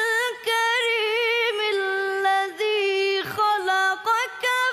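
A boy's high voice reciting the Quran in melodic tajweed style, holding long, wavering notes in phrases with short breaths between them.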